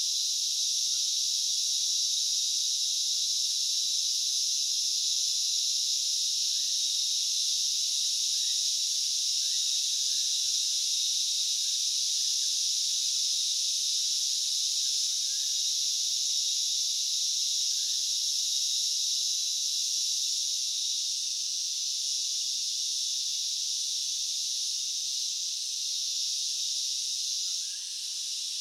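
Steady, unbroken high-pitched insect chorus, with a few faint bird chirps in the middle of it.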